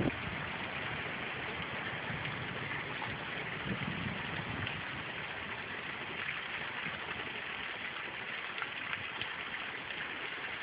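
Rain falling steadily in a storm, an even hiss, with a short low thump right at the start and a low rumble about four seconds in.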